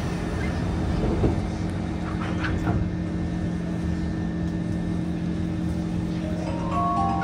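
Steady hum and rumble inside a Kawasaki C151 metro car as the train gets under way, with a few light knocks in the first seconds. Near the end a stepped, multi-note electronic chime begins: the on-board announcement chime.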